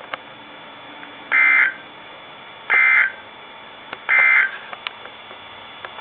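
NOAA Weather Radio Emergency Alert System end-of-message data bursts: three short, raspy digital buzzes about a second and a half apart, marking the end of the alert broadcast. They are heard over the radio's steady background hiss.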